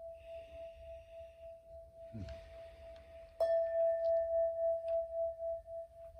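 A singing bowl ringing one steady tone that swells and fades in slow pulses. About three and a half seconds in it is struck, and the tone rings out louder with a higher overtone joining it.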